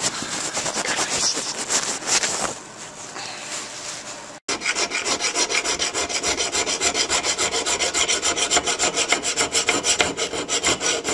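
Rough handling and rustling for the first couple of seconds. Then, after a cut about four and a half seconds in, a steel knife blade is worked by hand with a file in fast, even, rasping strokes, about four a second: the freshly hardened blade being cleaned up.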